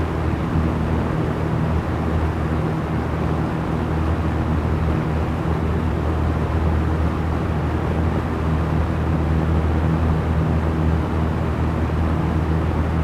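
Small electric fan running steadily: an even whoosh of moving air with a low, constant motor hum underneath.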